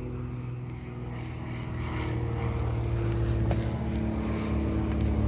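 Steady low engine drone in the background with a few held pitches, growing louder about two seconds in.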